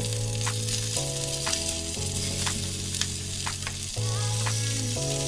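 Tandoori chicken legs sizzling in butter and oil in a frying pan while they are turned over with steel tongs. Background music with slow, held notes that change about once a second plays underneath.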